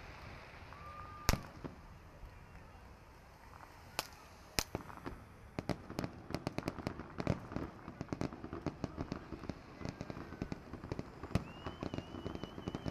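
Aerial fireworks shells bursting: a sharp bang about a second in, two more bangs around four seconds in, then a dense run of crackling pops from about halfway on.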